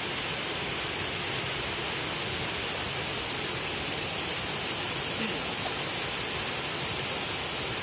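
Steady rushing of water pouring over a dam weir into the pool below.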